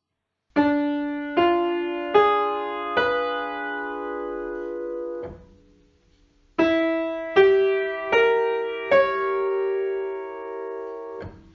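Piano playing two diminished seventh chords, each built up one note at a time from the bottom and held: first D–F–A♭–C♭, then, after a short pause, E–G–B♭–D♭. Together they are the two interlocking halves of the octatonic scale.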